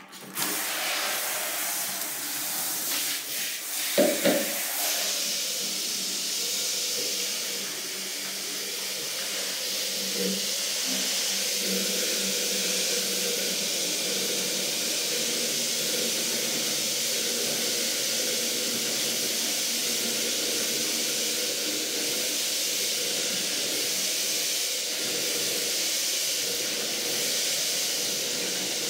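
Handheld shower running: a steady spray of water pouring through a cut plastic bottle into a plastic jerry can. The water comes on right at the start, with a few knocks about four seconds in.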